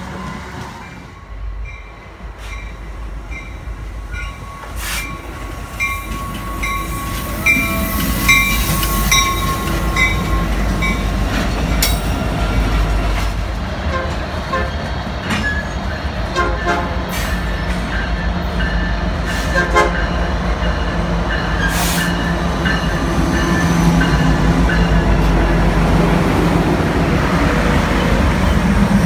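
Canadian National diesel freight train with tank cars approaching and passing close by, its locomotive rumbling louder toward the end. A train horn sounds with steady tones in the first half.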